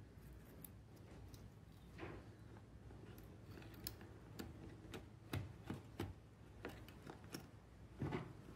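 Faint, scattered clicks and small knocks of small plastic and metal parts being handled, as carbon brushes in their holders are fitted back onto a hedge trimmer's electric motor. A few sharper clicks come about five to six seconds in and again near the end.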